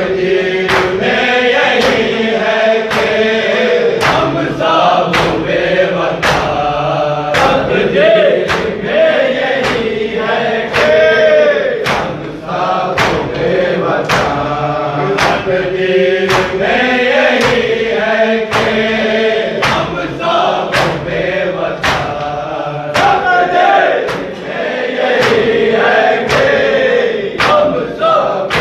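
Men chanting a nauha, an Urdu mourning lament, together, over a steady beat of sharp open-palm slaps of matam (chest-beating in unison), about one slap a second.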